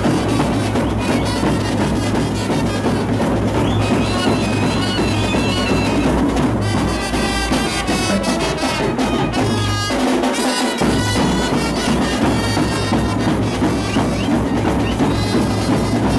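Loud brass band music: trumpets and clarinet playing a melody over drums and a steady deep bass, which drops out briefly about ten seconds in.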